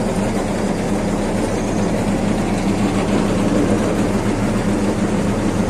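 Bulk feed truck's engine running steadily, a constant low hum with no change in speed.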